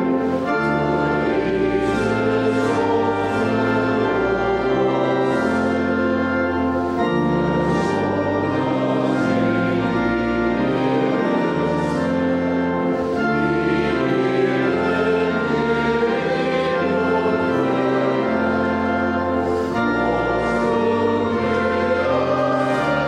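Congregation singing a hymn in Afrikaans to an instrumental accompaniment of steady held chords.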